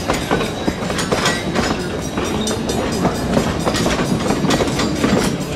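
Narrow-gauge passenger cars rolling past at low speed, their wheels clicking and knocking irregularly over the rail joints.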